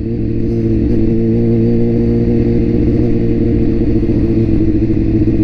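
BMW S1000RR's inline-four engine running at steady, nearly unchanging revs while the motorcycle cruises, with road and air noise.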